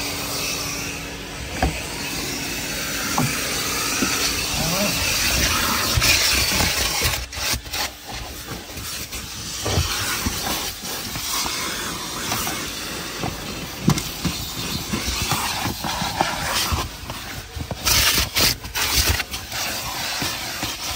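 Vacuum cleaner running with a steady hiss and a faint motor hum while cleaning out a car's interior. From about seven seconds in, the suction keeps going and is broken by many short knocks and rattles.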